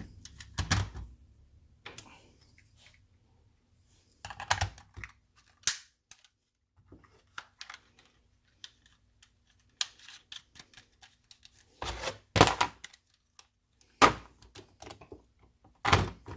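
Hard plastic clicks and knocks from handling a repaired plastic cell phone mount, coming in irregular short clusters with pauses between them; the sharpest knocks fall about twelve seconds in.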